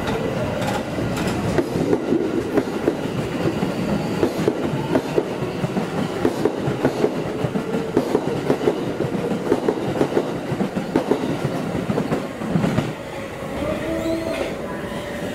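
Tokyo Metro 2000 series train pulling out, its wheels clattering in rapid clicks over rail joints and points; the clatter eases off about two-thirds of the way through, and a steady whine comes in near the end.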